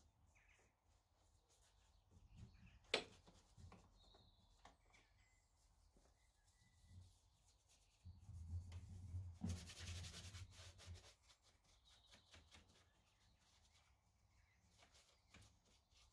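Faint brush scrubbing and rubbing, with a sharp click about three seconds in and a short hiss around ten seconds in.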